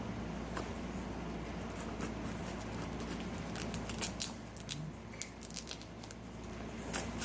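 Knife cutting through a cardboard box flap wrapped in layers of packing tape: scattered sharp clicks and crackles, bunched about four seconds in and again near the end.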